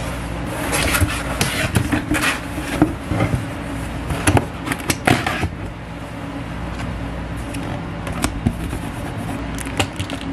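A paperboard cake box being handled and folded, with rustling, scrapes and sharp taps of cardboard and a clear plastic sheet, busiest in the first half and with a few taps near the end. A steady low hum runs underneath.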